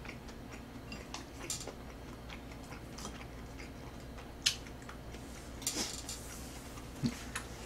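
Chopsticks clicking now and then against a bowl: a handful of light, separate clicks a second or so apart, over a faint low hum.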